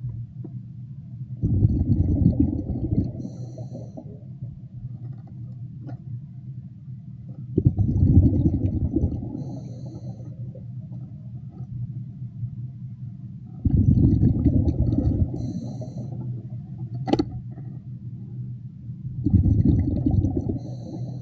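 Underwater breathing of a diver on a regulator: four bursts of exhaled bubbles rumbling, about six seconds apart, each followed by a short hiss of inhaling through the regulator, over a steady low hum. A sharp click comes near the end.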